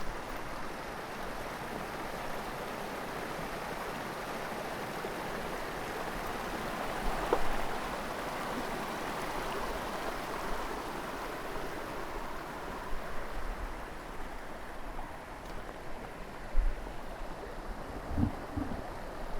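Steady rushing of mountain stream water, an even hiss. A few low thumps near the end.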